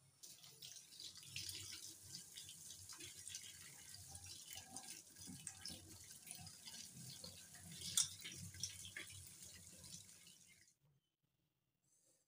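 Tap water running and splashing onto carrot patties in a wire-mesh strainer, with small clicks throughout and one sharper knock about eight seconds in. The water cuts off near the end.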